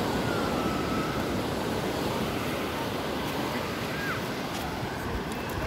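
Ocean surf and wind, a steady wash of noise.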